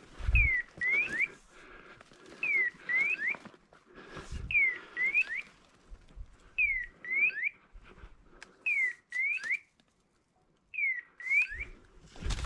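Hunting dog's electronic beeper collar sounding its point signal, a pair of swooping down-up chirps repeated six times about every two seconds, telling the hunter that the Irish setter is standing a woodcock. Under it, rustling and footfalls in dry brush.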